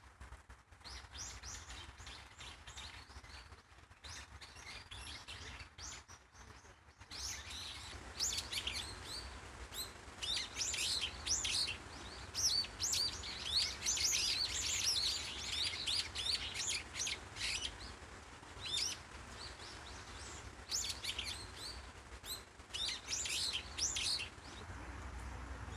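Many small birds chirping together in quick, short, overlapping calls, sparse at first and then dense from about a quarter of the way in until near the end. A faint steady low rumble runs underneath.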